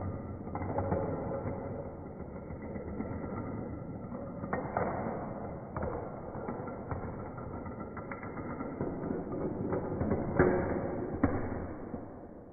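Added sound effect of continuous mechanical rattling and clattering with scattered sharp clicks, the loudest about ten seconds in, fading out near the end.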